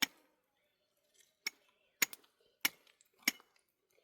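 Chopping with a blade: five sharp strokes, the last four coming steadily about every half second.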